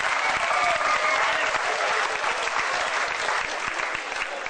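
Spectators applauding, a dense patter of clapping with a few voices calling out in the first second or so; the clapping dies down toward the end.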